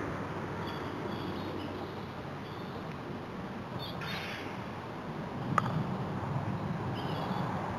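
A single sharp clack of a croquet mallet striking the ball, about two-thirds of the way in, over steady outdoor background noise. Short bird chirps come and go.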